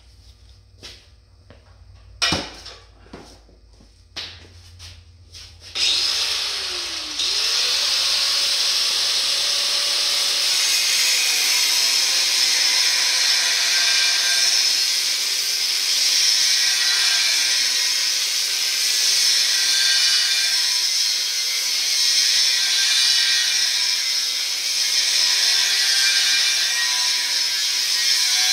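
A few knocks and clicks, then about six seconds in a Warrior 4.5-inch angle grinder starts and spins up. It cuts through the steel truck frame rail with a cutoff wheel, grinding loudly and steadily, its pitch dipping and recovering as the wheel bites and drags the small motor down.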